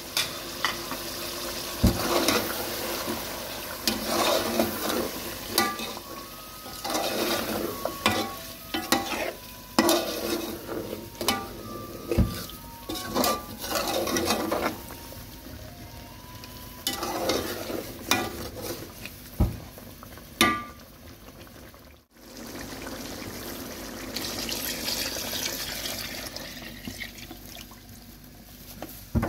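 A spoon stirring and scraping food in a cooking pot while it sizzles, with irregular knocks of the spoon against the pot. Near the end the stirring stops after a brief break in the sound, and a steady sizzle carries on.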